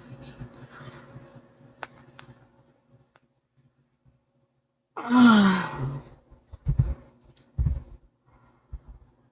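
A sleeping person's loud voiced sigh about five seconds in, its pitch falling as the breath goes out. A few short low breath sounds follow.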